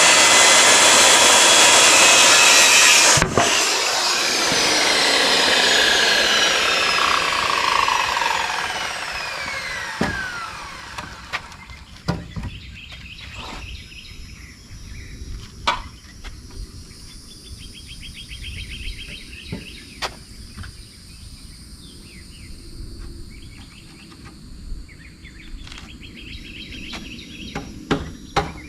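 Power saw running, then switched off about three seconds in, its blade whining down in pitch as it coasts to a stop over several seconds. Afterwards scattered knocks and taps, with insects trilling faintly in the background.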